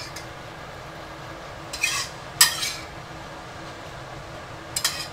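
Spatula scraping and clattering against a stainless steel wok and bowl as tomato sauce is scooped across, in three short bouts: about two seconds in, again half a second later (the loudest), and near the end.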